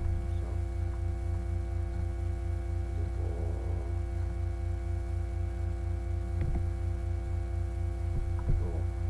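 Steady low electrical hum and buzz on a poorly working microphone, pulsing fast and evenly, with a couple of brief soft clicks in the second half, the louder one near the end.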